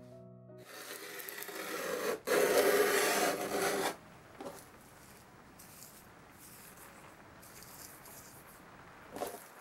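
Carbide hand scraper dragged over a wooden panel, scraping off the old finish in flakes. It is loudest in the first four seconds, then goes on more quietly.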